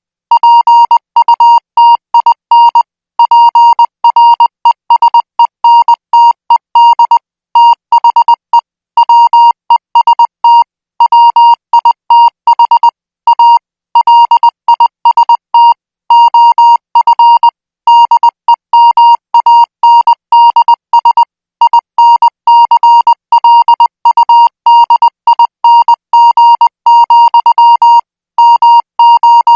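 Morse code practice signal sent at 20 words per minute: one steady, high-pitched electronic beep keyed on and off in dots and dashes, with short pauses between characters and groups.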